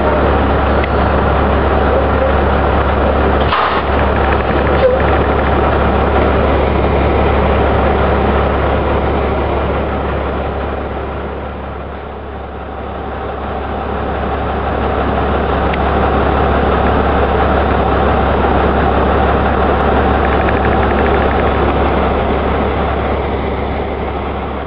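Truck engine running steadily, with one sharp knock about three and a half seconds in.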